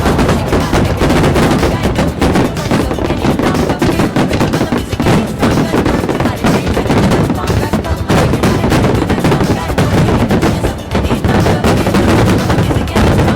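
Aerial fireworks bursting in a rapid, continuous barrage, the bangs packed so closely that they run together.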